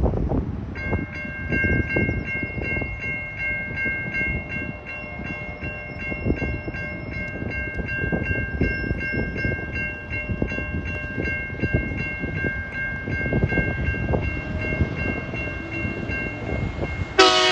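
A level-crossing warning bell rings steadily and rapidly while the boom gates are down for an approaching train, over a low rumble. Near the end, the TasRail TR class diesel locomotive sounds its horn loudly.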